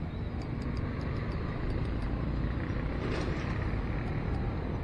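Steady low outdoor rumble with faint scattered ticks, and a brief louder rush of noise about three seconds in.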